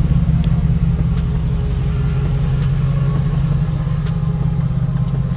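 Off-road race limousine's engine idling: a steady low hum with a light, even ticking over it.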